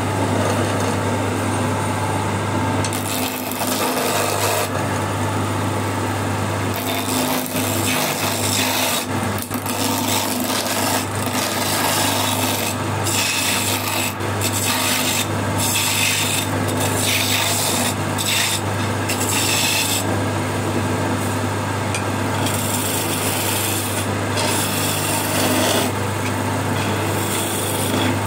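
Electric wood lathe running with a steady motor hum while a hand-held turning chisel cuts into the spinning wooden blank, roughing it from square to round. The cutting is a continuous rough scraping and shaving sound that swells and eases as the tool is pressed in and moved along.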